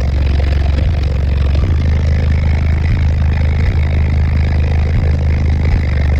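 Deep, steady bass droning from a car audio system's subwoofers, dipping briefly every second or so.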